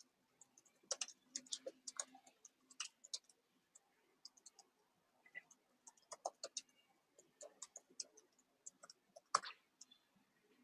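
Computer keyboard typing: irregular, light key clicks, with one louder keystroke near the end, the Enter key sending the typed question.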